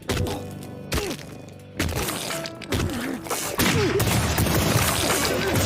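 Anime fight sound effects: sharp punch impacts and crashes. There are a few separate hits in the first two seconds, then a louder, continuous stretch of clashing blows from about three and a half seconds in.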